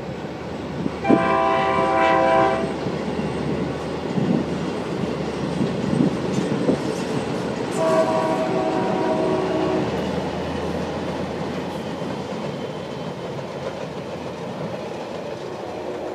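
Diesel locomotive air horn sounding two blasts for a road crossing, one about a second in and a longer one about eight seconds in, over the steady rumble and wheel clatter of a train rolling across a trestle.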